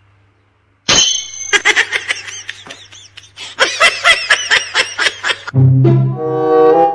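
About a second of silence, then high-pitched laughter in rapid pulses for about four seconds. Music with a low bass line takes over about five and a half seconds in.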